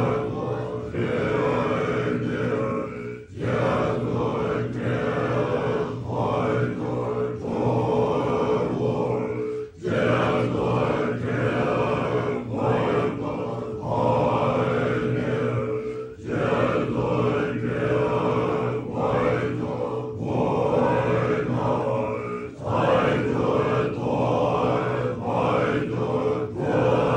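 Deep group chanting over a steady drone, sung in long phrases about six seconds apart with brief breaks between them. This is the ritual-style music of a stage dance performance.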